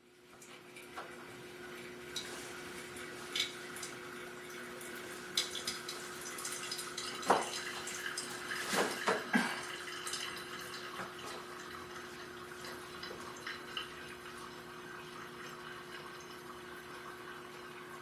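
Quiet room tone: a steady low hum with scattered light clicks and knocks, the loudest few about halfway through.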